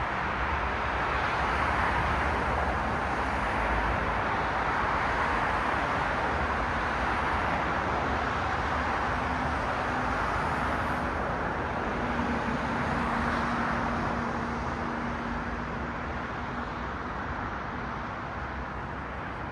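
Road traffic: cars passing with a steady tyre and engine hiss, swelling and easing slowly as vehicles go by, with a faint low engine hum in the middle.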